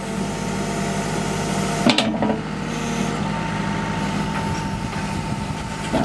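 Backhoe's diesel engine running under hydraulic load, with a steady hydraulic whine, as the bucket digs in rocky caliche clay. A single sharp knock sounds about two seconds in.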